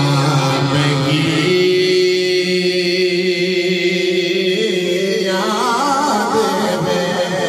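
Man's voice chanting an Urdu devotional salaam to the Prophet over a microphone, drawing out long held notes, with a wavering ornament near the end.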